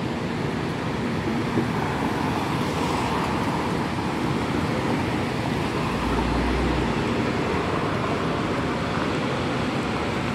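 Strong typhoon wind rushing steadily, with a low buffeting rumble on the microphone about six seconds in, mixed with cars passing on the road.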